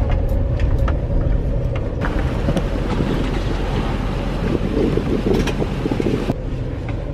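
Steady low engine hum inside a vehicle's cab. After a sudden change about two seconds in, there is outdoor rushing noise with wind buffeting the microphone, and this cuts off abruptly near the end.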